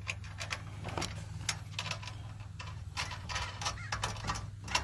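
Scattered clicks and light knocks from greenhouse base bars and their hardware being handled during assembly, over a steady low hum.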